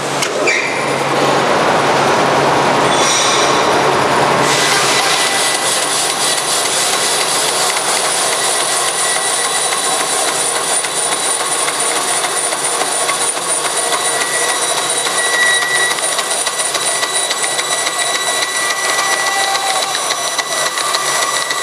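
Forrest Model 204 bandsaw, with a one-inch, 3-teeth-per-inch hook-tooth blade running at 3,000 feet per minute, starting up and then cutting through a roll of polypropylene film wound on a hard cardboard core. The cutting noise sets in about four and a half seconds in and carries on steadily as a dense hiss with several steady high tones.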